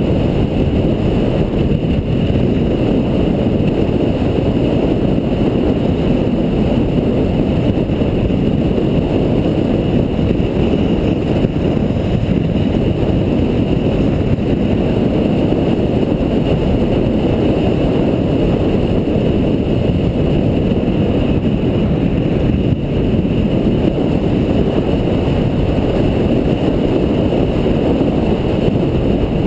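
A car driving steadily along an open road: a constant low rumble of engine, tyres and wind buffeting a vehicle-mounted camera's microphone, with no changes or separate events.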